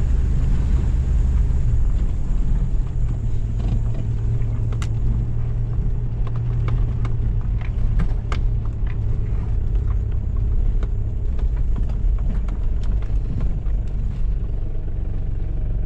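Toyota Land Cruiser Prado's 1KZ-TE four-cylinder turbo-diesel running steadily under way, heard from inside the cab. Scattered sharp clicks and knocks come through over the engine hum.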